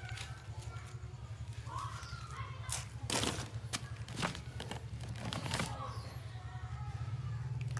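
A steady low hum with several sharp knocks and clatters between about three and six seconds in.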